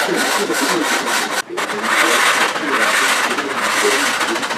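Cast-iron sole of a Stanley bench plane being lapped on sandpaper over a glass plate: continuous rasping scrape of back-and-forth strokes, with a brief break about a second and a half in.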